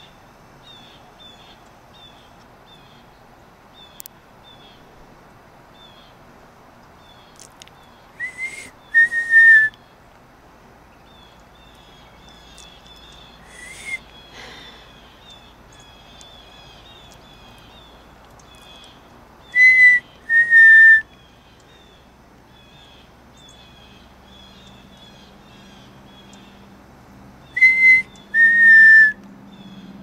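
A person whistling a loud two-note call, a higher note then a slightly lower one, three times over with a single note between, to call a pileated woodpecker to a suet feeder. Small birds chirp with many quick, high notes throughout.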